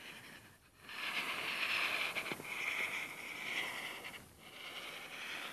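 Pen scratching across a writing surface in two long strokes, with a short break about four seconds in, as a line is traced around the outline of a square.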